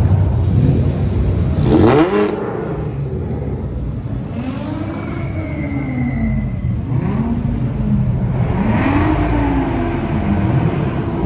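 Car engines revved again and again, each rev rising and falling in pitch, with the loudest, steepest rev about two seconds in.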